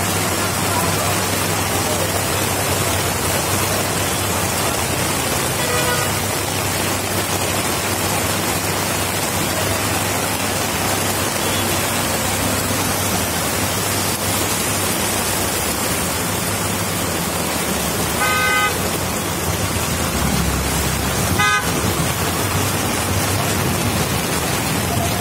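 Steady rush of heavy rain and road traffic, with vehicle horns tooting briefly a few times: once about six seconds in and again twice past two-thirds through.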